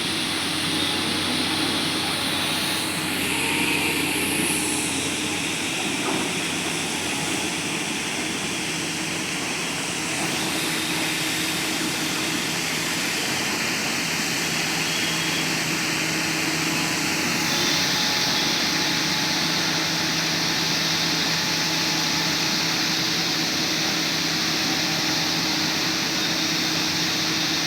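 Diesel engine of a Sany drilling rig running steadily with a low hum, growing a little louder and hissier about two-thirds of the way in.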